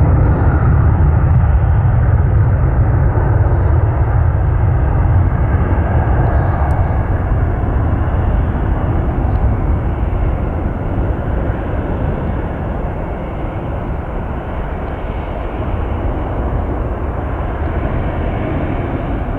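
McDonnell Douglas MD-11F freighter's three jet engines on a takeoff departure: a loud, steady rumble, heaviest in the low end, easing a little past the middle and building again near the end.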